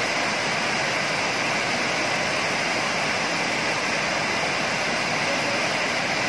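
Water pouring over a concrete weir and churning at its foot: a steady, continuous rushing of falling water.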